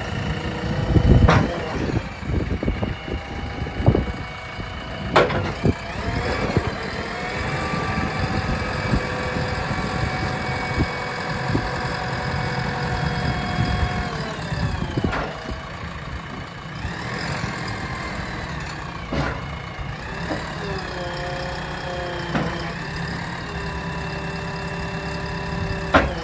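JCB 3DX backhoe loader's diesel engine running while its hydraulics are worked, the pitch of the engine and hydraulic whine holding steady, then dropping and rising again several times as the load changes. Several sharp metallic clunks come through, the loudest about a second in.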